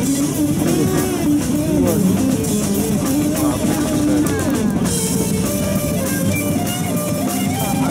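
Rock music with drums and guitar, playing at a steady level.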